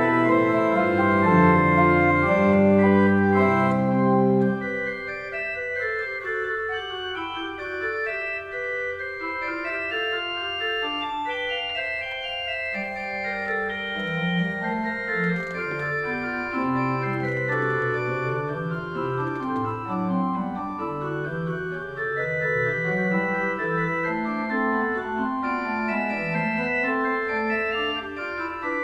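Steiner-Reck pipe organ playing several lines of counterpoint at once. A louder opening with low bass notes thins out about four seconds in to quieter playing higher up, and the bass notes come back about halfway through.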